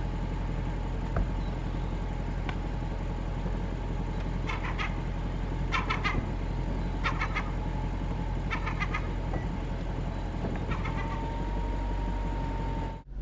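Power-operated fabric soft top of an Audi RS5 Cabriolet closing: a steady motor whine with a handful of short squeaks over the car's 4.2 V8 idling.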